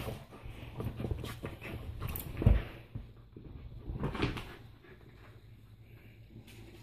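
Corgi mouthing and tugging a plush toy, then scrambling about, with soft knocks and rustling and a low thump about two and a half seconds in. It goes quieter after about five seconds.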